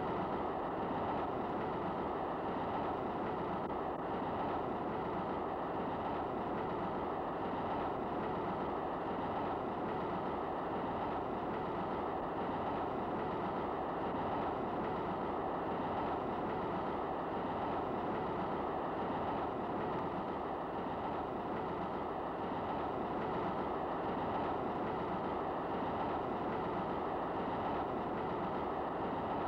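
Passenger train running steadily, heard from inside a compartment: an even rumble with the rattle of the wheels on the rails.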